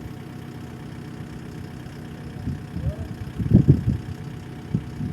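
Engine idling steadily, with a cluster of louder low bursts about three and a half seconds in and another near the end.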